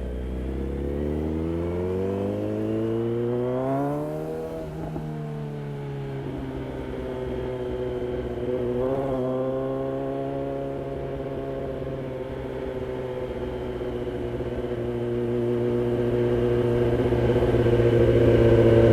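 Kawasaki Z900's inline-four engine running through a DTMOTO aftermarket exhaust. Its pitch climbs smoothly over the first four seconds, eases back a little, then holds steady with a brief blip about nine seconds in, and grows louder near the end.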